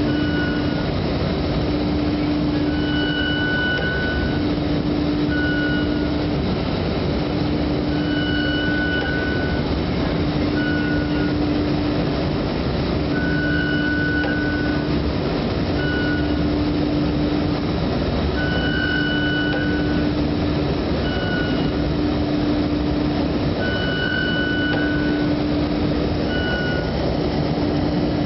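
Polisher top roll running with an abnormal noise: a steady low hum broken by short gaps about every two seconds, over continuous machine rumble. Higher-pitched tones come back in a long-then-short pair about every five seconds, repeating with each cycle.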